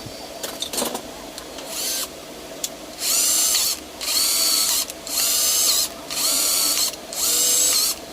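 Bosch GSR 120-LI cordless drill run in short bursts: a few clicks, then five bursts of motor whine about once a second, each spinning up quickly and holding a steady pitch until the trigger is let go.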